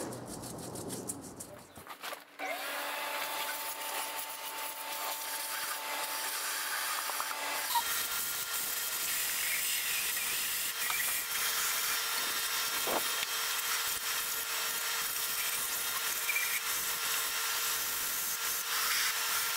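Shop vacuum running steadily with a hiss and a thin whine, its hose drawn over the engine's lower intake manifold sealing surfaces to pick up the scraping residue. It comes on about two seconds in, and the whine changes pitch about eight seconds in.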